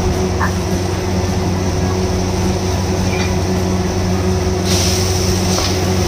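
Steady low machine hum of commercial kitchen equipment, with a burst of hissing about five seconds in as cauliflower florets go into the simmering sauce in a steel wok, and a few light ticks of the ladle.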